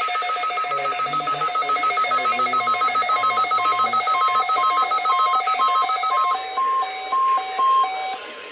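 Electronic alert alarms of NOAA weather radio receivers beeping as the test alert comes in: a rapid beep overlapped by a slower beep that joins about three seconds in, both stopping shortly before the end.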